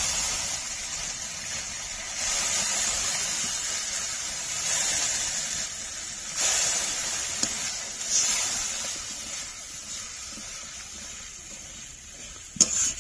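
Onion-tomato masala sizzling and hissing in hot oil after the spice-rinsing water has been poured in, the hiss swelling and fading every couple of seconds. A sharp knock near the end.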